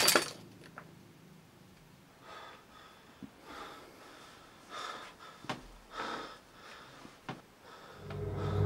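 A person breathing hard in short, soft gasps and breaths. A low steady hum comes in near the end.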